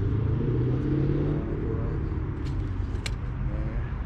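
An engine running steadily, a continuous low rumble, with a couple of faint clicks about two and a half and three seconds in.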